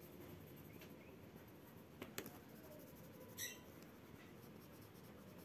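Faint scratching of a colored pencil shading on workbook paper, with two small ticks about two seconds in and a brief scratch about a second later.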